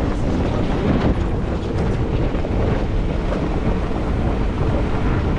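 Jeep Wrangler driving slowly over a rough dirt trail: a steady low rumble of engine and tyres on gravel, with wind buffeting the microphone.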